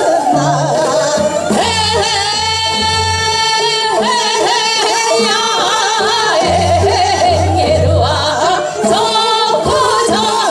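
Two women singing Seodo sori, the Korean folk song of the northwestern provinces, into microphones over an accompaniment with a low pulsing bass. The voices waver with heavy vibrato, holding one long note about two seconds in.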